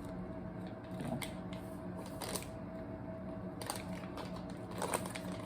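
MRE flameless ration heater fizzing and crackling with scattered faint clicks and pops as the water reacts with it, a sign that the heater has started to warm.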